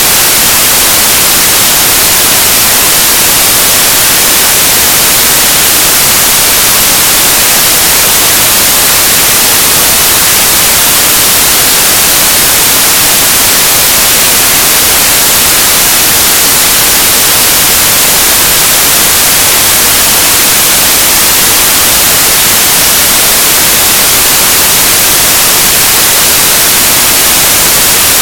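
Loud, steady static hiss, even and unchanging, strongest in the high frequencies.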